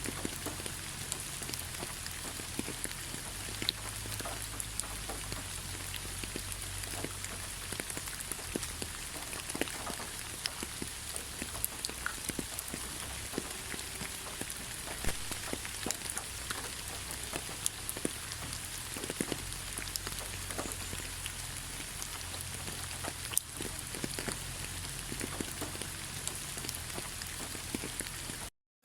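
Steady rain, an even hiss dotted with many separate sharp drop hits. The sound cuts out for a fraction of a second near the end.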